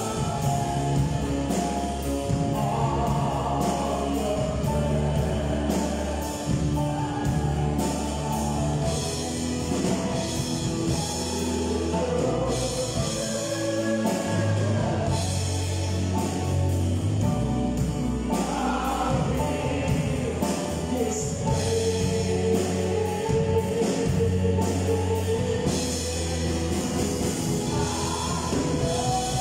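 Live worship song: a man sings lead into a microphone, holding some notes for several seconds, over a band of electric guitar and keyboard with a steady beat.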